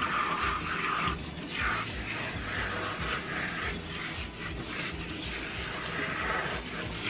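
Water from a hand-held sink sprayer hissing onto hair and into a stainless steel sink, coming and going as the spray is moved, over background music.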